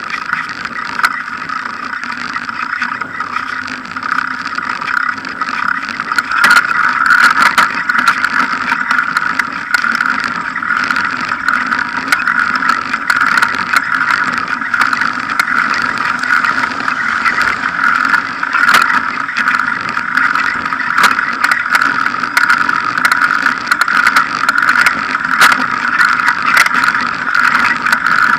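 Bicycle riding on tarmac, heard from a camera mounted by the front wheel: a steady hum from the tyre rolling on the road, with frequent clicks and rattles as the bike goes over bumps. It gets louder about six seconds in.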